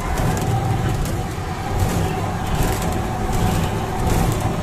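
Safari ride vehicle running: a steady low engine hum with scattered clattering and rattling.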